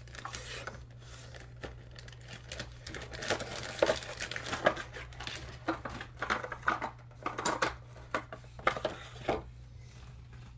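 Plastic zip-top bag and blister-card packaging crinkling and rustling as they are handled, with irregular rustles and small knocks, busiest in the middle of the stretch and dying away near the end. A steady low hum runs underneath.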